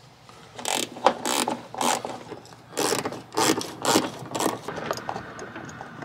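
Small hand ratchet from the Jeep's factory tool kit, fitted with a T30 Torx bit, clicking in short bursts on each back-stroke as it unscrews a trim-panel Torx screw, about one burst every half second.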